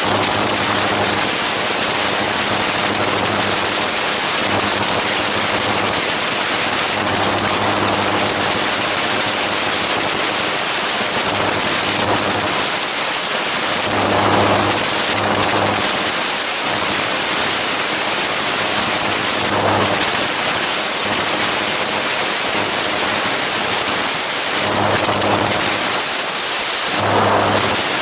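Gyroplane in flight: loud wind rushing over the microphone, with the steady drone of the engine and propeller showing through underneath. The wind swells into heavier buffeting a few times, about halfway through and near the end.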